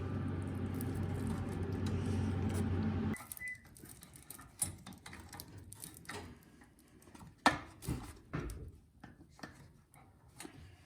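A steady mechanical hum that cuts off abruptly about three seconds in, followed by scattered light clicks and knocks of parts and tools being handled while the cleaned carburetor is refitted to the snowblower.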